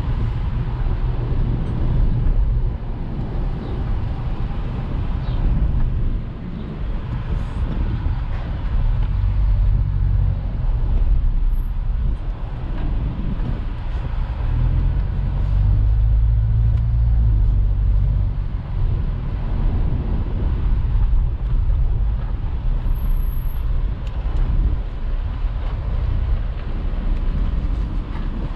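In-cabin sound of a 2008 Subaru Forester driving at low speed: the steady low drone of its flat-four boxer engine mixed with tyre and road noise, swelling louder twice in the middle as the car pulls ahead.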